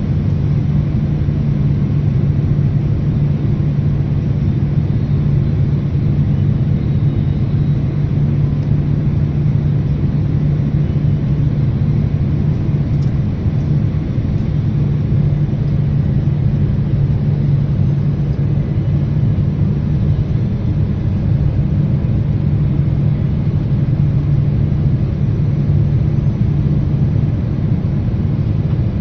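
Jet airliner cabin noise heard from a window seat while the plane descends toward landing: a steady, loud engine and airflow rumble with a strong low hum.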